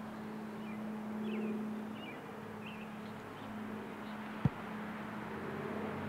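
An engine running steadily with a low, even hum, with a few faint bird chirps in the first half and a single sharp click about four and a half seconds in.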